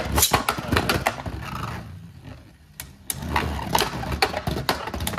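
Two Beyblade Burst spinning tops, Right Artemis and Left Artemis, spinning and clashing in a plastic Beyblade stadium: a rapid rattle of hard plastic clicks and knocks, quieter for a moment about halfway through, then knocking again.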